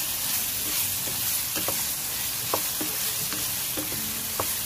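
Beef tripe sizzling as it sautés in a metal pan, with a wooden spatula stirring it and knocking against the pan a few times, irregularly.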